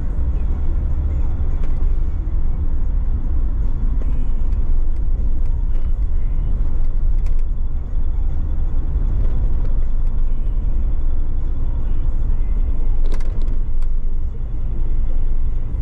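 Car driving at steady speed, heard from a camera on its bonnet: a continuous low rumble of engine, tyres and wind buffeting the microphone. A brief knock about thirteen seconds in.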